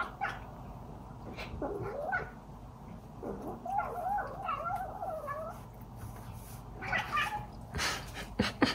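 A cat's drawn-out, wavering yowl lasting about two seconds, starting about three and a half seconds in, after a shorter rising call near two seconds in; a few short knocks follow near the end. It comes from a bout of play-fighting.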